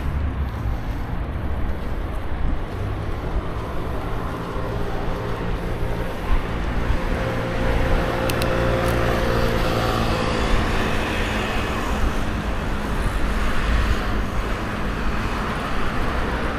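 City road traffic, cars going by on the road beside a cycle path, heard from a moving bicycle as a steady, loud rumble.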